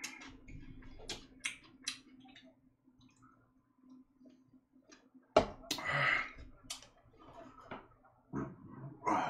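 A person eating: chewing with scattered sharp clicks, and a loud knock about five seconds in.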